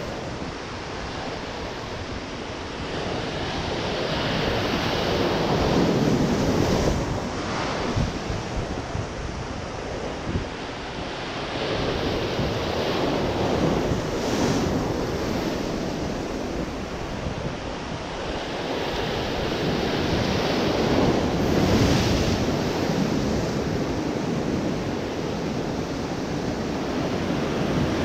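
Sea surf breaking and washing over shore rocks, swelling and falling in slow surges several seconds apart, with wind buffeting the microphone.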